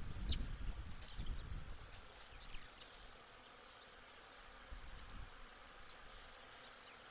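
Outdoor ambience at a wildlife camera: a low rumble of wind on the microphone for about the first second and a half and again briefly near five seconds, over a steady hiss with faint, short, high chirps scattered throughout.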